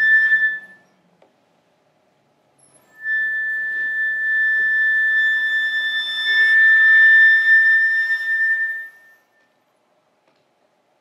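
Solo concert flute playing a short high note, then, after a pause of about two seconds, one long held high note that swells louder before fading out to silence.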